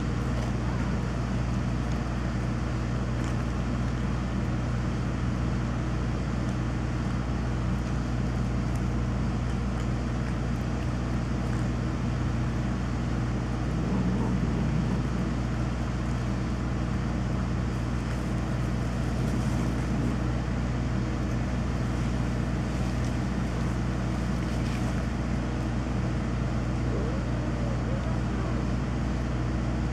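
Electrical transformer humming loudly and steadily, a constant low drone that does not change.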